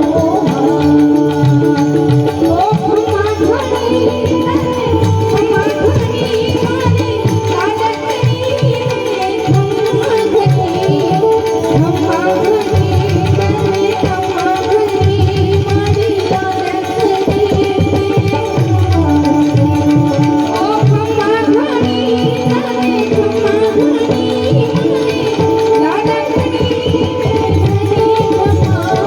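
Loud Indian music with a busy hand-drum beat and a wavering melody line, playing without a break.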